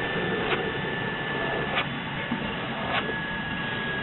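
A paring knife being stropped on a leather belt: a stroke with a light click about every second and a quarter, over a steady hum.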